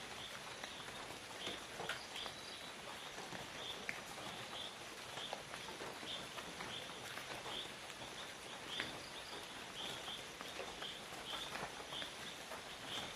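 Tropical forest ambience: a small creature's short, high chirp repeats steadily, about once or twice a second, over a soft background hum of the woods, with a few faint scattered clicks.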